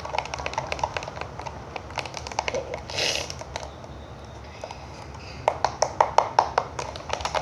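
Old-glue slime mixture being stirred and worked by hand, a run of quick wet clicks and taps that comes fastest and loudest over the last two seconds, with a short hiss about three seconds in. The batch is not setting into slime.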